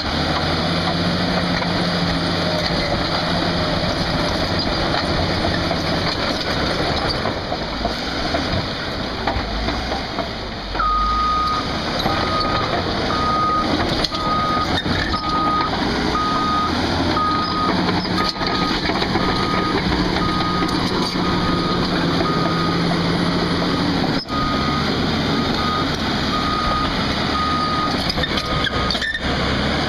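A heavy vehicle's engine running steadily, joined about a third of the way in by a backup alarm beeping about once a second as it reverses.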